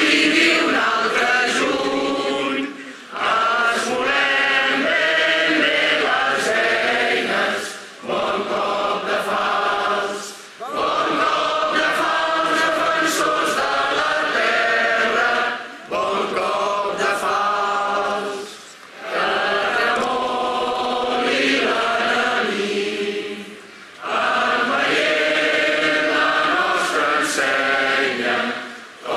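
Large crowd singing a song together, in long sung phrases broken by short pauses every few seconds.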